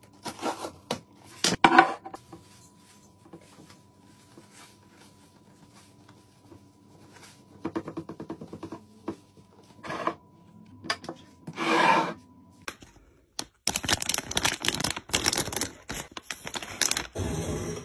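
Cardboard box of washing powder handled with scrapes and rustles, then the powder poured into a glass jar in short hissing runs. About thirteen seconds in, a plastic laundry-pod bag is crinkled and handled, with dense crackling.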